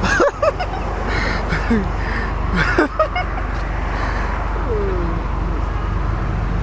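Short cackling yelps and laughs from people's voices, bunched in the first three seconds, with one drawn-out falling cry near the end, over the steady low rumble of a car engine.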